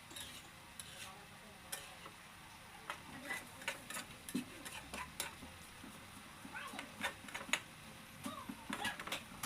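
A cooking utensil stirring in a pan of chicken adobo, knocking and scraping against the pan many times over a faint sizzle.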